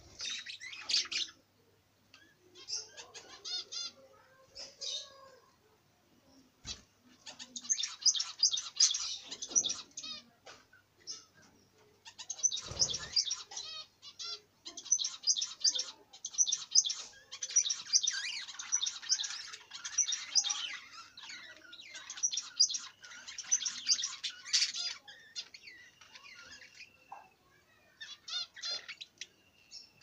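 A flock of budgerigars chattering: rapid, high chirps and warbles in bouts, with short pauses between them. A soft thump comes part way through.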